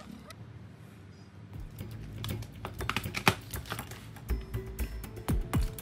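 Plastic phone backs clicking and tapping against a tabletop as the phones are handled and laid out, a rapid irregular run of sharp clicks starting about a second and a half in, with quiet background music.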